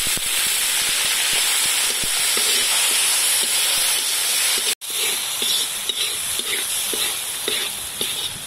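Loud sizzling as fish sauce hits hot oil with shallots, garlic and palm sugar in a wok. After a cut about five seconds in, the sizzling is a little quieter, with the spatula scraping and clicking against the wok as the mixture is stirred.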